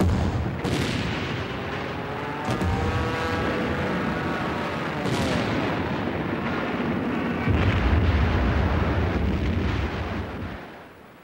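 Anti-aircraft gunfire with a few sharp shots, and an aircraft engine droning past with its pitch arching up and down. About seven and a half seconds in comes a heavy low rumble of an explosion, dying away near the end.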